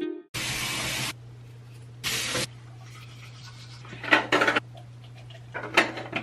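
Two short sprays from a spray bottle, about two seconds apart, followed by light clattering of objects being handled.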